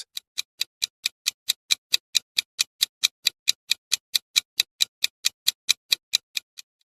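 Countdown-timer ticking sound effect, like a clock: a steady run of sharp ticks, about four or five a second, that stops just before the end.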